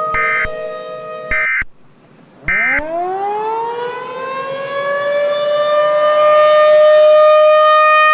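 A civil defense siren holds a steady tone and cuts off about a second and a half in, overlaid by three short bursts of Emergency Alert System data tones about a second apart, the end-of-message signal that closes an alert. After the third burst a siren winds up, rising in pitch until it holds a steady tone, and stops abruptly at the end.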